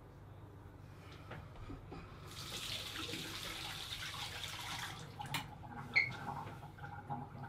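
Bathroom tap running for about three seconds, starting about two seconds in, followed by two sharp knocks.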